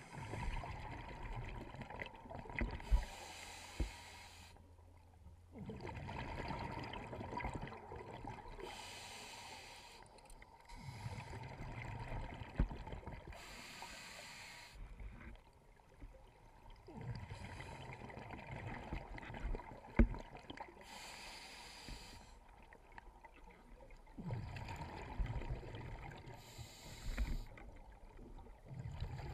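Scuba diver breathing through a regulator, heard underwater through a waterproof camera housing: a hiss of inhalation alternating with rumbling, bubbling exhalations, roughly every six seconds. A few sharp knocks sound among them.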